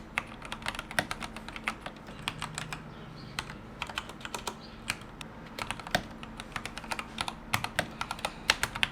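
Typing on a Rakk Ilis mechanical keyboard with Gateron Yellow switches and YMDK dye-sub PBT keycaps: a steady run of uneven key clicks, several a second.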